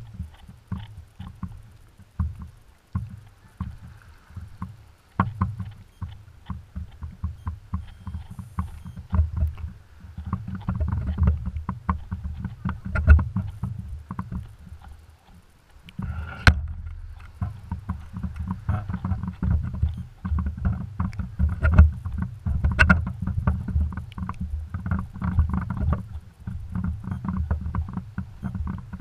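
Water sloshing and slapping against a floating camera housing bobbing at the sea surface: a rising and falling low rumbling wash with many irregular clicks and knocks, one louder knock about halfway through.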